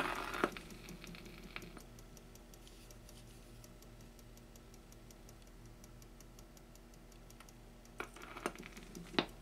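RCA Victor 45-EY-3 record changer running: faint, rapid, even ticking from the mechanism over a low hum, while the next record in the stack fails to drop. A few sharper clicks near the end come from hands handling the record stack.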